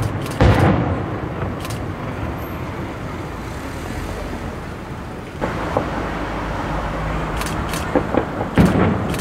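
Fireworks display: a shell bursts with a bang just after the start and its rumble rolls on. From about five seconds in come sharp crackles and more bangs, the loudest near the end.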